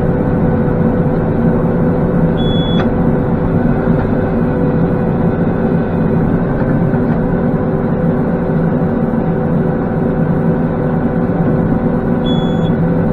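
Massey Ferguson 4707 tractor's diesel engine running steadily under PTO load, driving the Kubota round baler while it net-wraps a finished bale. Two short electronic beeps sound, about two and a half seconds in and near the end.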